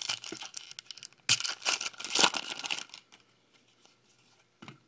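A foil trading-card pack wrapper being torn open and crinkled by hand, loudest in a crackling stretch about a second in that lasts around a second and a half, then dying away.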